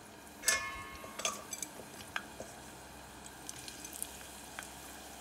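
Sweet potato fries deep-frying in a pot of hot oil, with faint scattered crackling ticks. A sharp metallic clink comes about half a second in, and a lighter one about a second in.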